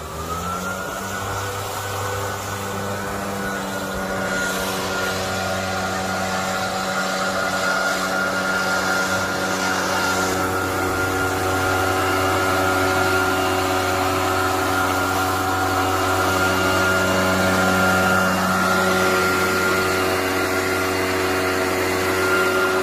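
Maruyama backpack power spreader's small engine revving up at the start, then running steadily at high speed as its blower fan drives granular fertilizer out through the blower pipe. It grows gradually louder.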